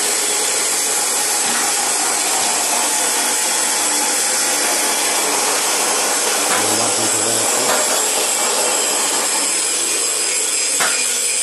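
Steady, harsh noise of metalworking power tools in a steel fabrication shop, with a light knock near the end.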